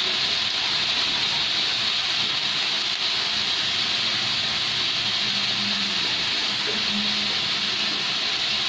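Chicken pieces sizzling in hot oil in a kadhai: a loud, steady hiss.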